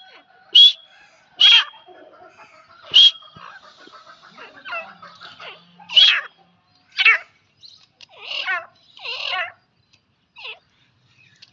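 Grey francolins calling: a string of short, sharp, high-pitched notes, about eight in all and unevenly spaced, with softer chattering notes in between.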